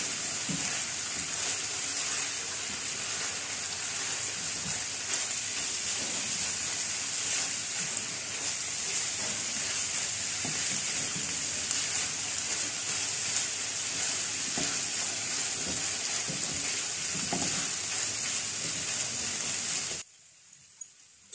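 Minced chicken frying in ghee in a wide pan, a steady sizzle with the strokes of a silicone spatula as it is stirred and browned (bhuna) while the yogurt's water cooks off. The sizzle cuts off suddenly near the end.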